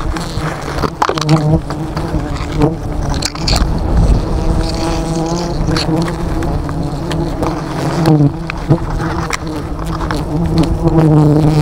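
A honeybee colony buzzing loudly and steadily close by as it is disturbed and bagged. Short knocks and rustles of handling come through the buzz.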